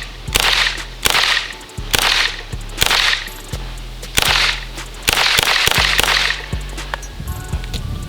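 Heckler & Koch SP5 9mm pistol-caliber carbine fired semi-automatically: a slow, steady string of about eight shots, roughly one a second, each crack trailing off in a short echo.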